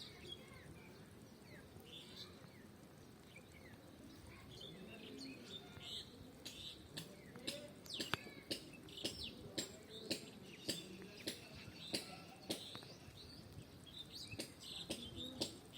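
Small birds chirping in short, scattered calls. From about six seconds in, a series of sharp clicks or taps, roughly two a second, stands out as the loudest sound.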